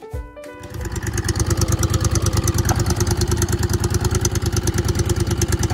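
Music cuts off under a second in, then a small fishing boat's engine runs steadily with a rapid, even chug while the boat is under way.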